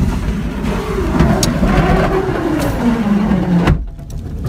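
Car running, heard from inside the cabin: a steady low rumble with a pitched tone that rises and falls, then drops away before everything cuts off abruptly near the end.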